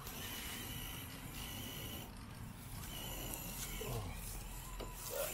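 Electric RC rock crawler's motor and geared drivetrain whining faintly in short throttle bursts, the whine coming and going several times as the truck climbs a loose dirt slope.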